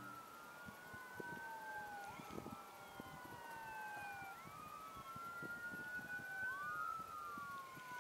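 Faint police car siren wailing, its pitch sweeping slowly up and down, each rise or fall lasting about two seconds.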